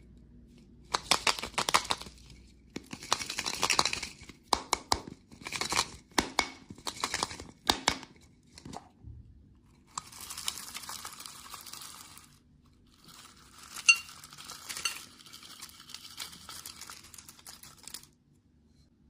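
Candy packaging being torn open and crinkled: a run of short, crackly tearing bursts, then two longer stretches of rustling with a sharp click partway through.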